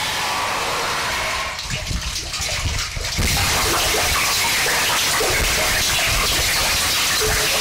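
Harsh noise music: dense, distorted static across the whole range. It thins briefly into a lower crackling rumble, then surges back slightly louder a little over three seconds in.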